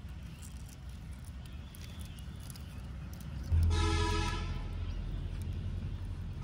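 A steady low rumble, with one horn toot about three and a half seconds in that fades over about a second, typical of a vehicle horn.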